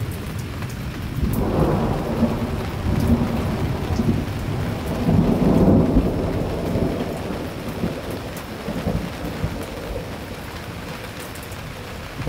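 A long roll of thunder over steady rain: the rumble builds about a second in, peaks around the middle and slowly dies away.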